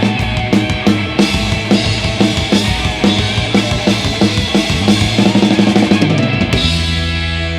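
Live rock band playing the closing bars of a song, with steady, quick drum hits over guitars and bass. About six and a half seconds in a final crash lands and the chord rings out.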